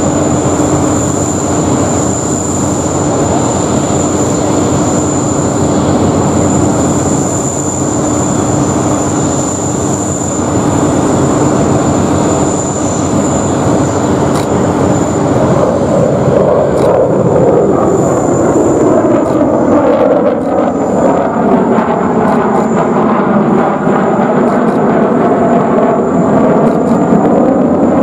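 Jet noise of a B-1B Lancer bomber's four General Electric F101 turbofans in a flypast: a loud, steady roar with a thin high whine. About halfway through the roar begins to waver in pitch, sweeping up and down as the bomber passes.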